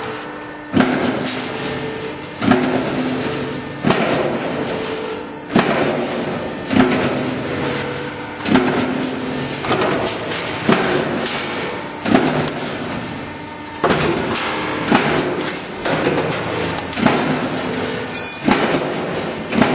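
Multi-punch press working strip steel, striking about once every one to two seconds with a sharp metallic bang, over the steady hum of the running production line.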